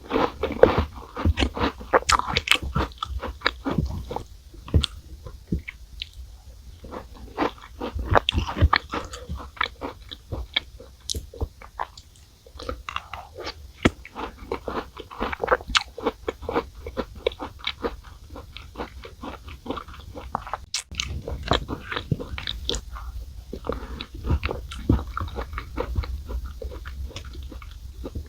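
Close-miked crunching and chewing of Chic Choc chocolate chip cookies: sharp bites and crunches follow one another thickly, with a few brief pauses.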